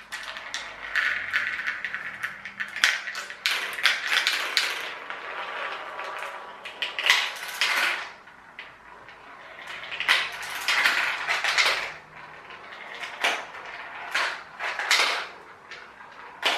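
Marbles rolling and clattering down a plastic marble-run toy, with a continuous rolling rattle and many sharp clicks as they drop through the track pieces. The sound comes in several waves of a few seconds each as the marbles pass through the run.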